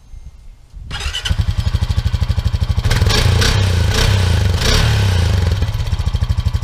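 2007 Honda 420 ATV's single-cylinder four-stroke engine starting about a second in, blipped a few times, then settling to a steady idle, running on freshly changed oil.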